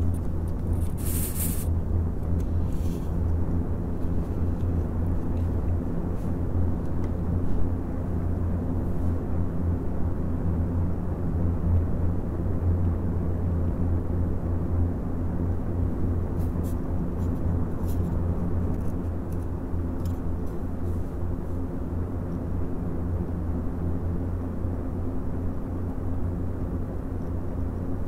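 Several Noctua NF-A14 PWM 140 mm fans, powered from USB, running together with a steady whoosh of air and a low hum with a few faint steady tones over it. A brief hiss sounds about a second in.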